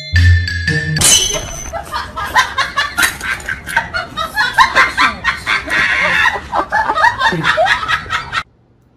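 Marimba-style music for about a second, then a long run of loud, quick, laughter-like vocal bursts, several a second, that cut off suddenly near the end.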